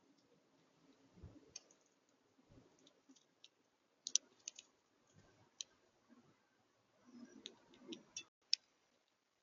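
House finch cracking seeds at a bird feeder: scattered sharp, faint clicks, bunched about four seconds in and again near the end, with soft low knocks between them.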